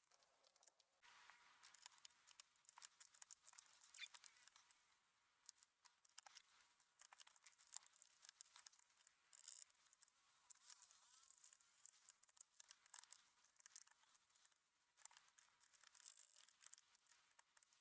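Faint, rapid small plastic clicks and scrapes from hands working on a mechanical keyboard during a switch swap, with two short quieter gaps.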